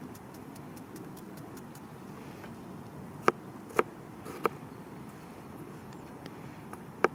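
Knife cutting a cucumber: four sharp clicks of the blade, three close together about three to four and a half seconds in and one near the end, with faint ticks in between, over a steady low hiss.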